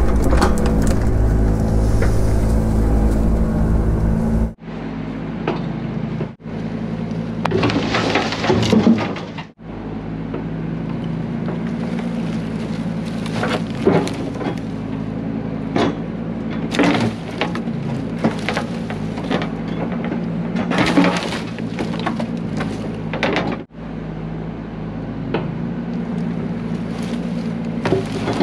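Excavator engine running steadily, with repeated knocks and clatter as stumps and wood are loaded into a dump truck bed. The sound cuts out sharply a few times.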